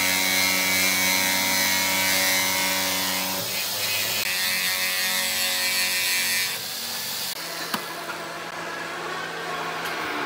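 Corded Makita jigsaw cutting through wooden slats, its motor and reciprocating blade running steadily under load. It breaks off briefly about three and a half seconds in, then carries on more quietly for the last few seconds before stopping at the end.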